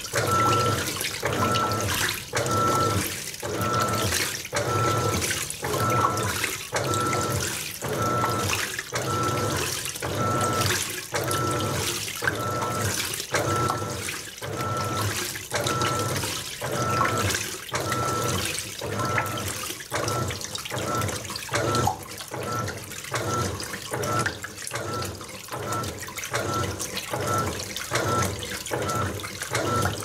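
Panasonic 18 kg top-load washing machine (NA-F180P7T) turning its pulsator back and forth in regular strokes about once a second, each stroke with a short motor whine and the water sloshing, as it works through its load-accommodation routine with a king-size comforter before draining.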